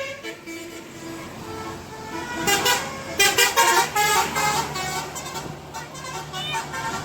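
Bus 'telolet' musical horn (a basuri multi-tone horn) sounding short notes, with a low steady engine hum from about four seconds in.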